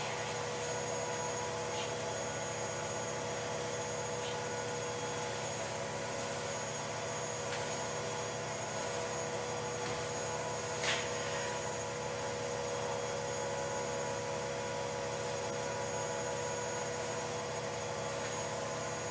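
A steady hum with constant hiss and a few held tones, unchanging throughout; a single faint click about eleven seconds in.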